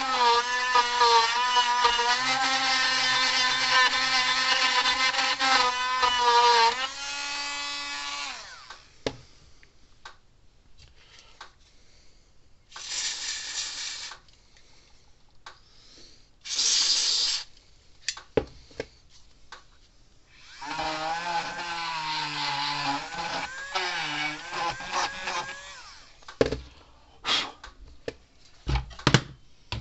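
Dremel rotary tool running at a steady high whine, cleaning up a tarnished wire connection, then winding down and stopping about seven seconds in. After a pause of small clicks and handling come two short hissing bursts and a second, lower stretch of whirring with a wavering pitch.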